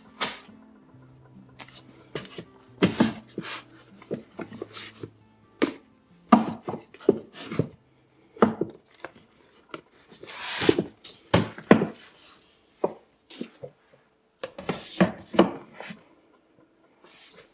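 A string of irregular knocks, clunks and a short scrape, the sound of hard objects being handled and set down on wood. Soft background music plays under them in the first half.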